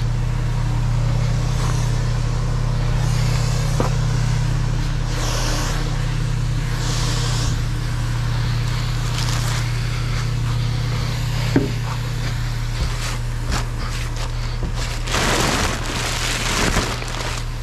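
Roll-off garbage truck's diesel engine idling steadily, with a few bursts of rustling close by, the longest near the end.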